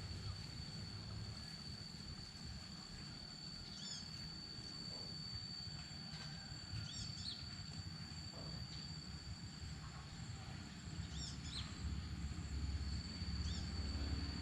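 A small animal giving a few short, high chirps or squeaks, spaced a few seconds apart, over a steady high-pitched hum and a low outdoor rumble.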